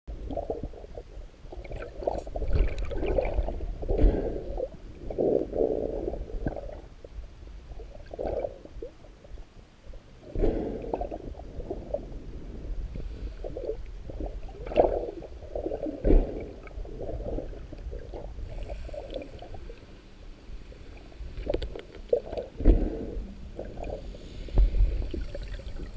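Muffled underwater water noise picked up inside a camera housing: irregular swishing and gurgling surges with low rumbling knocks.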